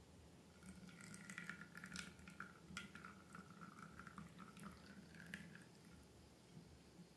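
Slime being handled: faint sticky clicks and crackles, from about half a second in until near six seconds.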